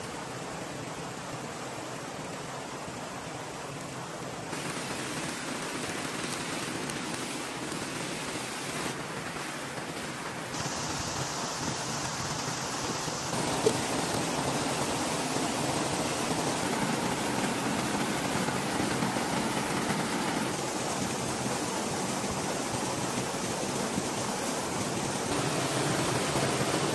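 Steady rush of flowing stream water and a small waterfall, stepping louder and changing in tone several times, loudest near the end. A single short knock about halfway through.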